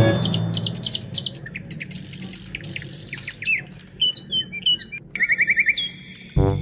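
Birds chirping: many short, high whistled chirps, with a quick run of repeated notes about five seconds in. Background music comes back in just before the end.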